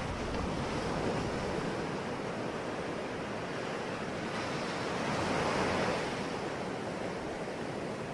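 Ocean waves washing ashore as a steady rushing surf, with one wave swelling louder about five to six seconds in.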